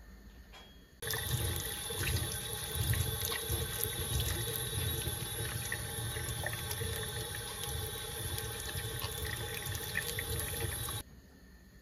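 Tap water running onto a lemon and splashing in a sink as it is scrubbed with a sponge. It starts abruptly about a second in and cuts off suddenly near the end.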